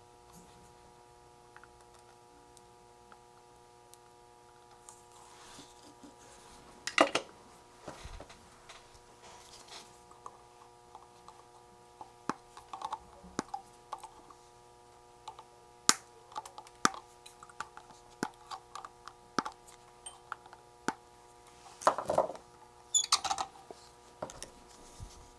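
Scattered sharp clicks and light taps of hand tools and small electronic parts at an electronics workbench during through-hole kit assembly, with the loudest clicks about a third of the way in and near the end. A faint steady hum of several tones runs underneath.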